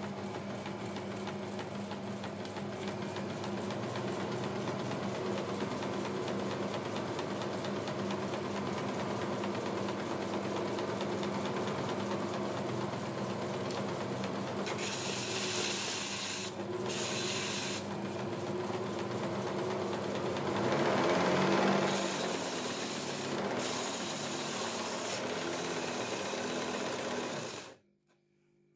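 Homemade plywood belt sander running with a steady motor hum. About halfway in, a wooden board is pressed onto the moving abrasive belt, adding a rasping sanding hiss that breaks off briefly a few times. Everything cuts off suddenly just before the end.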